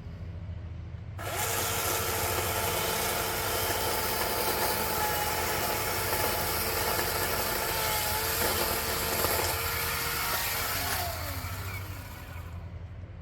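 Chainsaw engine idling, then revved to full throttle about a second in and held at high speed while cutting a tree branch, its pitch dipping under load. It winds back down to idle near the end.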